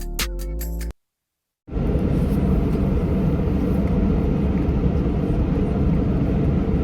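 Electronic background music that cuts off about a second in, then, after a brief gap, the steady rumble of a car running.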